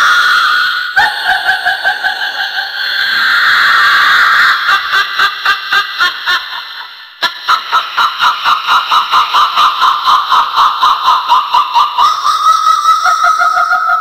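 High-pitched witch cackle: a voice laughing in long shrill held notes, a short break about seven seconds in, then a long fast run of repeated 'ha's, about five a second.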